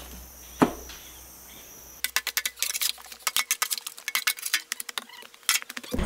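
Insects chirping steadily while a hoe strikes the soil twice, the second strike under a second in. About two seconds in the sound cuts to a fast, irregular run of sharp clicks and clinks.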